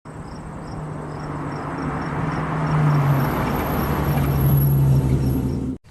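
Car engine running with a steady low note, growing steadily louder, then cut off abruptly just before the end.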